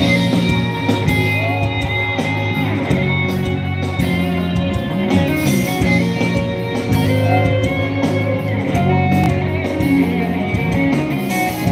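Live band playing an instrumental passage through a stage PA, led by guitar with drums keeping the beat.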